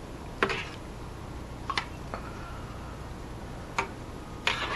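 A metal spoon clinking against the side of a stainless steel saucepan while stirring perogies in water: about five light, irregular taps, some with a brief metallic ring, over a faint steady low hum.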